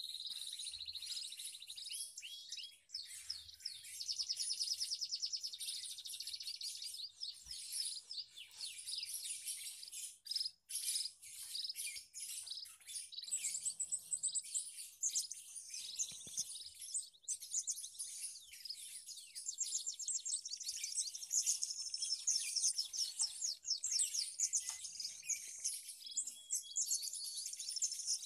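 A group of aviary finches chirping and twittering together: a dense, continuous chatter of short, high, thin calls mixed with rapid trills.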